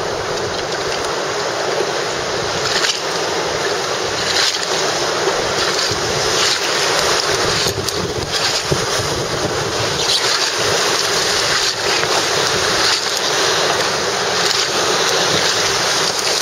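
Whitewater of a river rapid rushing past an inflatable raft, with wind buffeting the microphone; the rushing grows slightly louder and water splashes against the raft's bow near the end.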